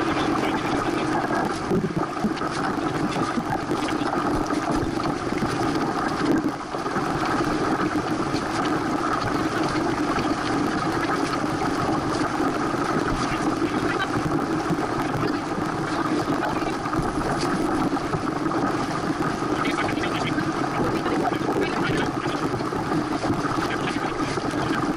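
Steady rush of wind and water on a Santana 525 sailboat under way under sail, heard through a boat-mounted action camera.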